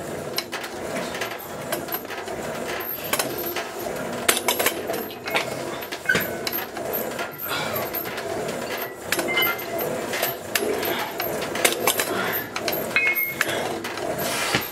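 Spin-lock dumbbell plates clinking and knocking during chest-supported dumbbell rows: scattered short metallic clinks throughout, over steady room noise.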